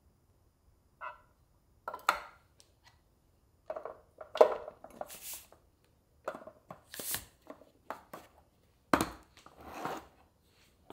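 A spatula scraping thick strained Greek yogurt into white food-storage containers, then lids pressed on and the containers set down and stacked: a series of short scrapes, clicks and knocks.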